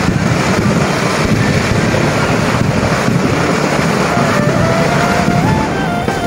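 Motorcycles and scooters riding past close by in a steady stream, their engines running. About four seconds in, a thin melody that steps up and down in pitch joins in.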